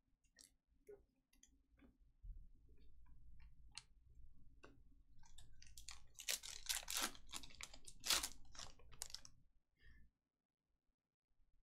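Scattered light clicks and taps of trading cards being handled. From about halfway there are a few seconds of crinkling, as a card-pack wrapper is torn open and crumpled.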